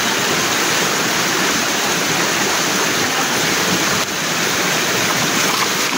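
River water rushing steadily: a loud, even rush of flowing water.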